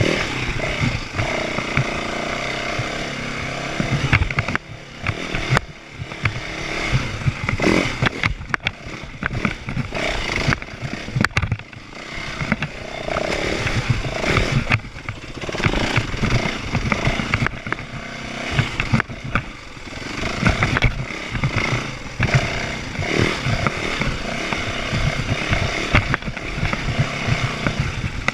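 A small petrol engine revving up and easing off unevenly, again and again, with rattling and clatter over it.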